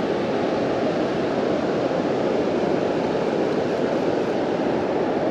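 Steady rushing roar of a big river weir, with water pouring over it, running high and noisier than usual after heavy rain.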